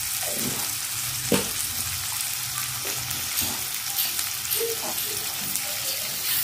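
Onion, tomato and green chillies sizzling steadily in hot oil in a wok, the masala frying just after turmeric and chilli powder have gone in. A single sharp tick sounds about a second and a half in, with a few softer knocks after it.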